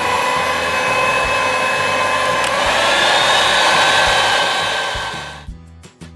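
Electric hand mixer running, its beaters whisking thick sponge-cake batter in a stainless steel bowl. The motor's whine steps up in pitch about halfway through and cuts off near the end, leaving soft background music.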